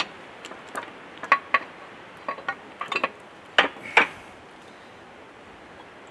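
Metal tools and parts clinking and tapping together in about a dozen sharp, irregular strikes, a few of them ringing briefly; they stop about four seconds in.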